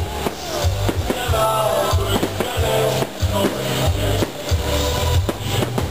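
Music with a pulsing bass beat and sustained melody lines, loud and continuous.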